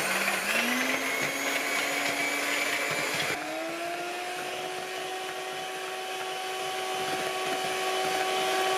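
Electric hand mixer running steadily, its beaters whipping cream in a glass bowl as it thickens: a steady motor whine that steps up slightly in pitch about three seconds in.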